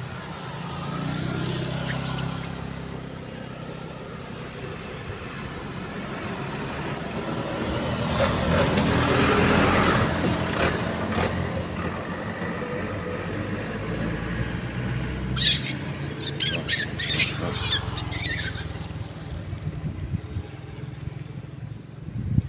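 A motor vehicle passing on the road, its engine hum building to a peak about halfway through and then easing off. A short run of sharp, high-pitched sounds comes about three-quarters of the way through.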